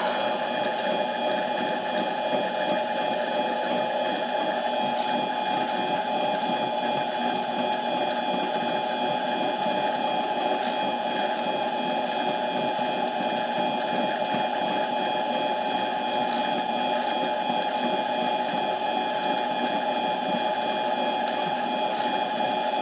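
Harbor Freight mini lathe running at a steady speed, its motor and gear train giving a steady whine of several fixed tones, with a few faint ticks, as it turns an 11 hp Briggs & Stratton camshaft while its journal sleeves are taken down in light cuts of about two thou.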